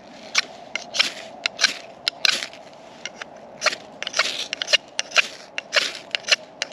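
Ferrocerium rod struck hard with the spine of a knife, striking sparks: a rapid, uneven series of short, sharp scraping strokes, about three a second.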